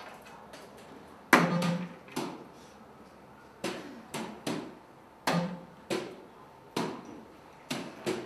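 Soft-tip darts striking an electronic dartboard: a sharp clack about a second in and another a little past five seconds, with several lighter clacks and knocks between and after them.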